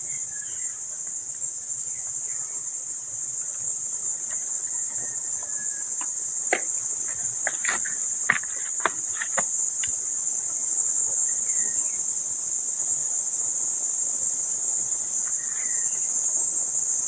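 A steady, high-pitched chorus of insects filling the air without a break. About halfway through comes a short run of sharp clicks and knocks.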